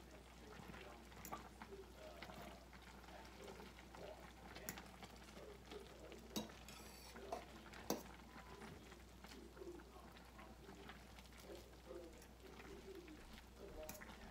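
Faint stirring of noodles and dumplings in a simmering stainless steel frying pan, with a soft bubbling and occasional sharp taps of the utensil against the pan.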